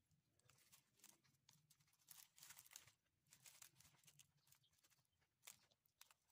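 Faint crinkling and crackling of plastic cling film handled over a plate, in irregular bursts, with a faint low hum underneath.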